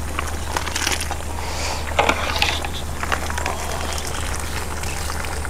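A large pot of goat-trotter soup at a hard boil over a high wood fire: irregular crackling and popping over a steady low rumble, with one sharper knock about two seconds in.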